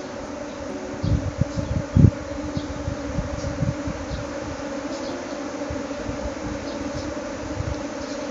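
A swarm of honey bees buzzing in a steady, dense hum as the colony abandons its nest. A few low thumps come between about one and two seconds in.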